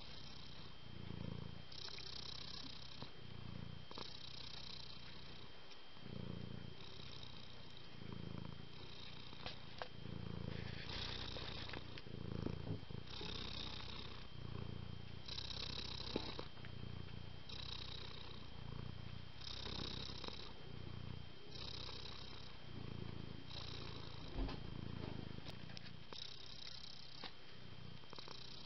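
Domestic cat purring continuously, swelling and easing in an even rhythm of about one breath a second.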